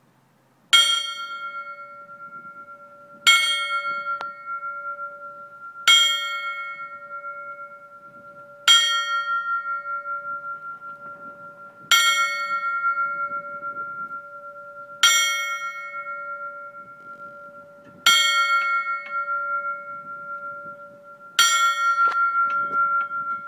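Fire truck bell tolled slowly as a funeral honour: eight single strikes about three seconds apart, each ringing on until the next.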